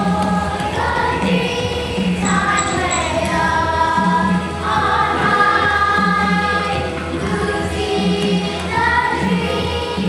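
Music: a song sung by a group of voices over instrumental backing.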